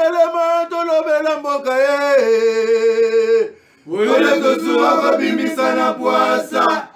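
Sung opening jingle: a male voice singing long held notes, breaking off briefly about three and a half seconds in, then singing on.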